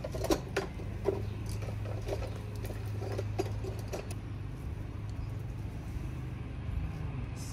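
Light clicks and taps of hand tools being handled on the car, about nine in the first four seconds, then stopping, over a steady low hum.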